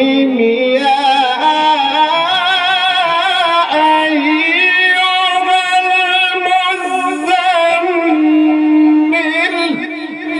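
A male Quran reciter's voice in a long, wordless-sounding melodic passage of chanted recitation, sung through a microphone. The pitch winds and wavers in ornaments, then settles into a long held note near the end.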